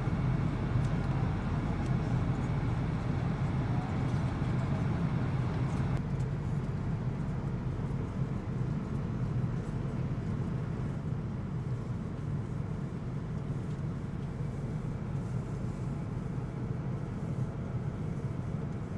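Steady engine and airflow noise heard inside the cabin of a Boeing 777-200 airliner, a deep rumble under a broad hiss. The higher hiss drops noticeably about six seconds in.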